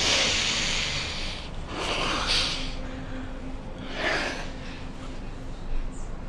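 A person breathing heavily: a long, noisy exhale at the start, then shorter breaths about two and four seconds in.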